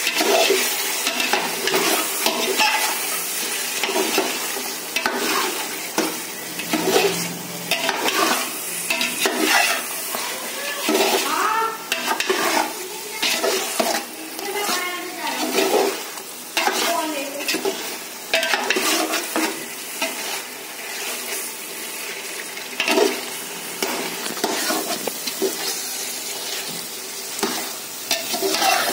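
Metal spatula stirring and scraping chicken pieces through frying masala gravy in a metal pot, with repeated scrapes and clinks against the pot over a steady sizzle.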